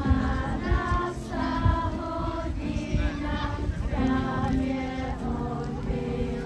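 A group of children singing together as a choir, with held notes that shift in pitch through the melody.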